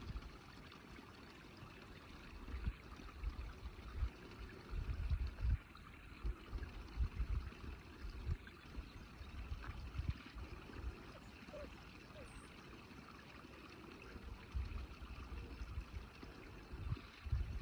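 Wind gusting on the microphone in irregular low buffets over a steady, faint rushing hiss of outdoor ambience.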